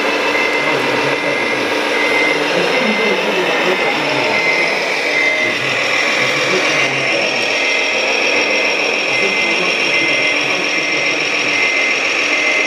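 Radio-controlled model construction machines at work: the electric hydraulic pump of a Liebherr model excavator whines steadily, with a short high beep repeating at intervals, over faint background chatter.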